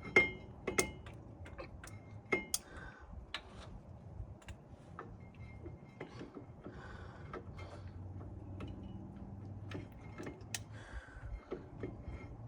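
Hand tools and metal brake parts being handled: irregular metallic clicks and clinks, with a sharp ringing clink just after the start and a few more in the first few seconds.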